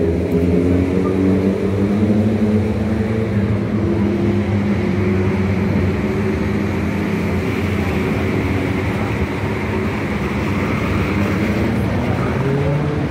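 Road traffic: motor vehicle engines running, a steady low hum with a few held tones that drift slowly in pitch.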